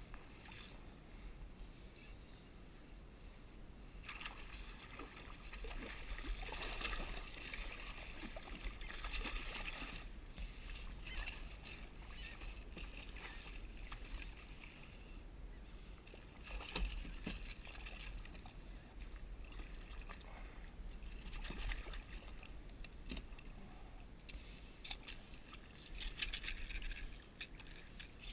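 Hooked bluefish thrashing and splashing at the surface beside a plastic kayak, in repeated bursts, over a steady low rumble.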